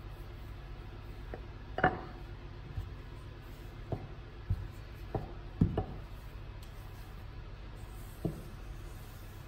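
A wooden rolling pin knocking and rolling on a granite countertop while dough is rolled out: several short sharp knocks, the loudest about two seconds in and again about five and a half seconds in, over a low steady hum.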